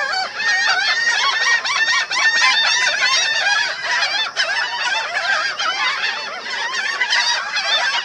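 A flock of black skimmers calling: many short calls, each rising and falling in pitch, overlapping without a break.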